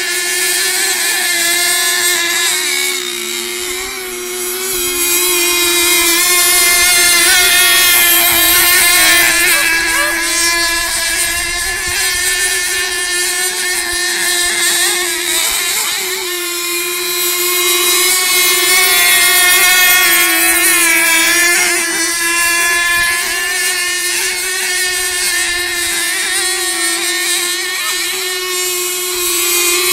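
Radio-controlled racing boats running at speed: a steady, high-pitched engine whine, with other boats' engine notes rising and falling in pitch as they pass.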